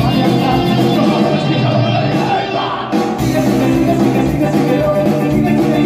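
Loud amplified music played through PA speakers, with a woman and a man singing into hand microphones over it.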